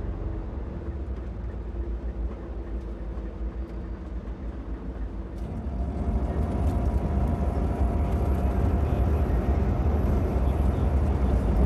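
Inside a moving coach bus: steady engine and road rumble that grows louder about halfway through, with a faint steady whine coming in.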